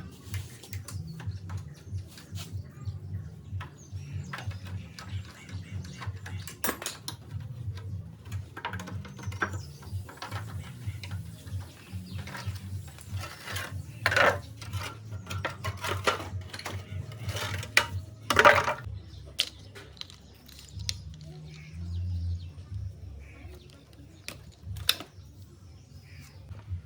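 Metal clinks and knocks of tools and parts being handled, with two louder ringing strikes partway through, over a steady low hum.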